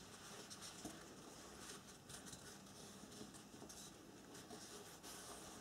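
Faint rustling and brushing of a paper napkin as fingers fold and press its creases, with many light scratchy ticks.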